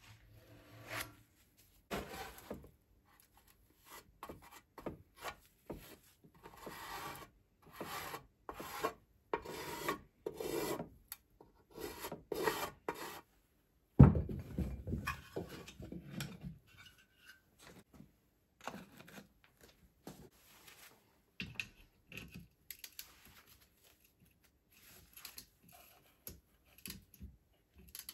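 A run of short rasping rubbing strokes on the filler-coated steel fuel tank. About halfway through there is one loud, heavy thump as the Csepel 125 engine is set down on wooden blocks, followed by light knocks and clicks as it is handled.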